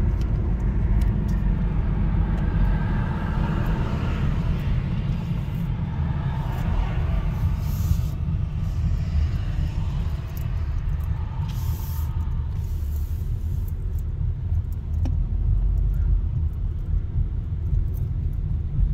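Steady low rumble of a car driving slowly, heard from inside the cabin: tyre and road noise with the engine underneath.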